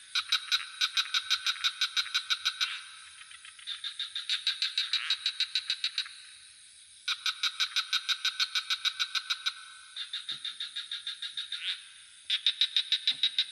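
Frogs calling in repeated bouts of rapid pulsed notes, about five or six a second, each bout lasting a second or two before another starts, over a steady high-pitched insect trill.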